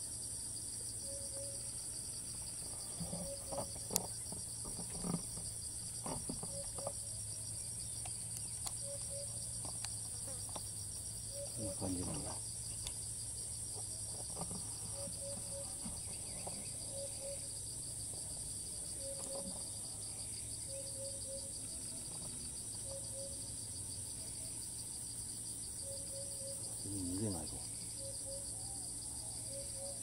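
Steady, high-pitched insect chorus with a fast pulsing texture. A low, short double call repeats every second or two, and a few soft knocks come in the first several seconds.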